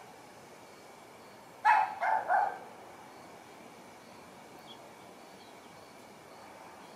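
A dog barking three times in quick succession, about two seconds in.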